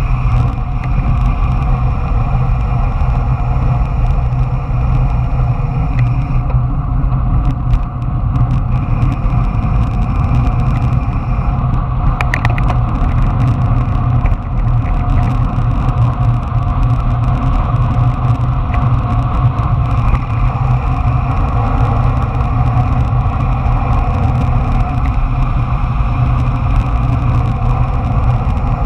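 Steady rush of wind over the camera microphone mixed with wheels rolling fast on asphalt during a downhill descent.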